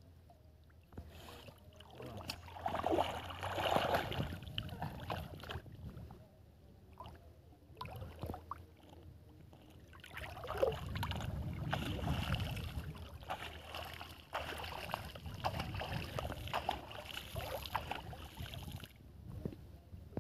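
Water sloshing and splashing from a man wading through shallow, muddy water while moving a bamboo-poled lift net. It comes in uneven swells, one a couple of seconds in and a longer one from about halfway to near the end.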